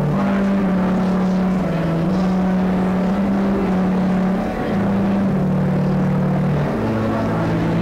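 Church organ playing a slow hymn-like melody, with held notes that step from one pitch to the next about every half second to a second.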